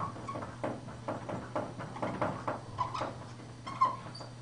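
Marker squeaking and tapping on a whiteboard as numbers are written in quick short strokes, with a few sharper squeaks around three and four seconds in. A steady low hum runs underneath.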